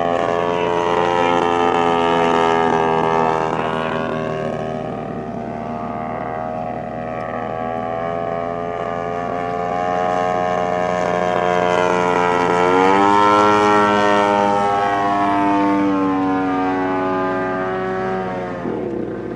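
DLE 55 single-cylinder two-stroke gasoline engine of a large-scale radio-controlled Tiger Moth biplane, droning in flight. It swells louder twice as the plane passes, rises sharply in pitch about two-thirds of the way through and drops again near the end.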